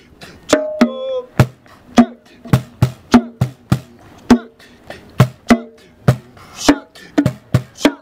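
Bongos played by hand in a lively rhythm, about two to three strokes a second, each stroke ringing briefly with a pitched tone. About a second in, a short wavering vocal sound rises over the drumming.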